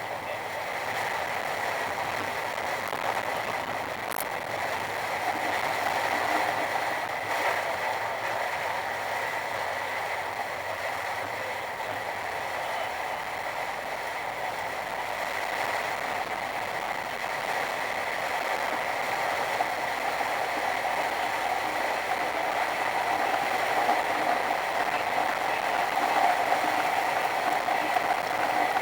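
Steady noise of a car driving in heavy rain, rain and tyres on the wet road, picked up by a dashcam inside the cabin, growing a little louder in the last third.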